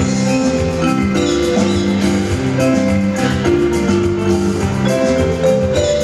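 Instrumental music played on an electronic keyboard: a melody of short, changing notes over a moving bass line, at a steady loud level.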